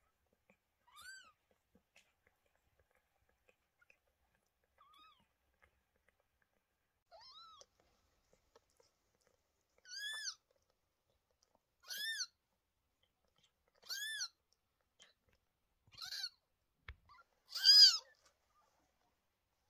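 Newborn kittens mewing: short, high-pitched cries, each rising and falling in pitch. A few faint cries come first, then louder ones about every two seconds, the loudest near the end.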